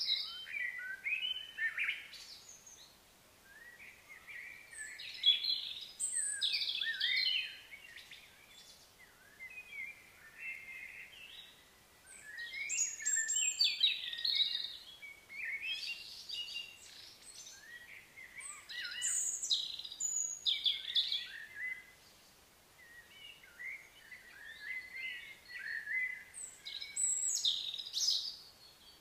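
Songbirds singing in short bursts of quick, high chirping and warbling notes, a new phrase every few seconds.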